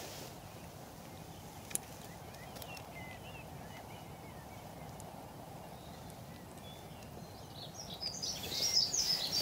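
Small birds singing over a steady low outdoor background noise: a few faint chirps a couple of seconds in, then a louder, busier burst of chirping near the end. A single sharp click about two seconds in.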